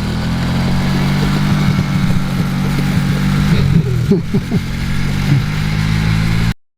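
ATV engine running at a steady pitch, with a few short vocal sounds about four seconds in. The sound cuts off abruptly near the end.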